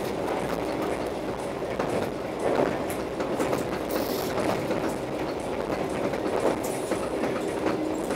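Passenger train coach running at speed, heard from inside the carriage: a steady rumble of wheels on the track that swells and eases every second or two, with a few short clacks.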